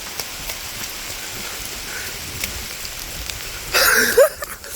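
Torrential rain pouring down in a steady hiss, with scattered sharp ticks of individual drops hitting close by. Near the end comes a louder burst of noise with a short cry from the person being drenched.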